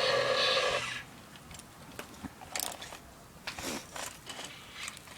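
Toy backhoe scraping and scooping in garden dirt: faint, scattered small scrapes and crunching clicks.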